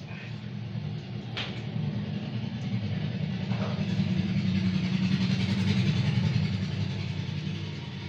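A motor engine's low, steady hum that swells over the first few seconds and fades a little toward the end.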